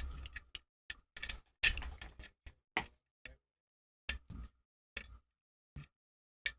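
Irregular clicks and short scrapes of a lock pick and tension wrench working the pins of a KEIL 310 five-pin tumbler lock during single-pin picking, about a dozen in all, some in quick clusters.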